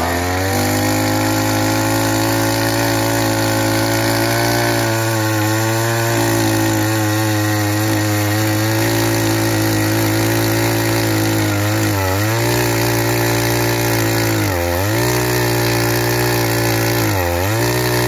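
Small gasoline earth auger (post-hole digger) running at full throttle, its bit drilling into soil. The engine holds a steady high pitch and sags briefly in speed three times in the second half before picking back up.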